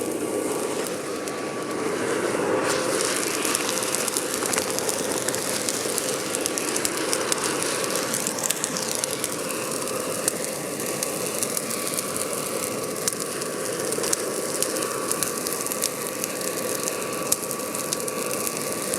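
Charcoal hearth furnace burning under a forced air blast: a steady rush of air and fire with a faint steady hum, with constant small crackles and pops from the burning charcoal. The charge of bloomery iron is melting down below the tuyere.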